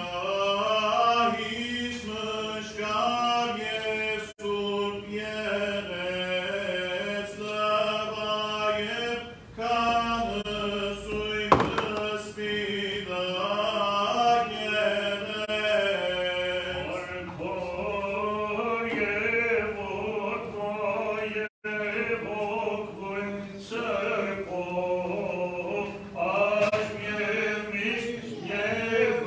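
Men's voices chanting Armenian liturgical chant in unison over a steady low held note. There is a single sharp knock about twelve seconds in.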